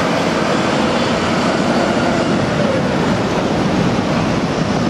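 Street traffic as red double-decker buses drive past: a steady dense noise of bus engines and tyres on the road.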